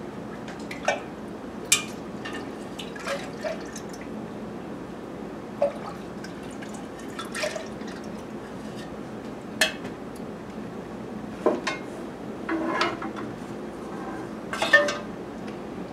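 A metal ladle clinking irregularly against a metal pouring pitcher and pot as melted candle wax is scooped and poured into the pitcher, with liquid dripping and trickling between the clinks.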